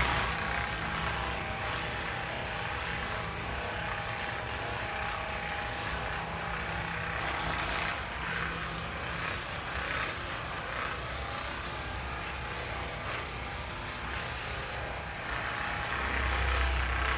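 Handheld percussion massage gun running steadily against the patient's muscles, a continuous motor buzz that grows louder near the end.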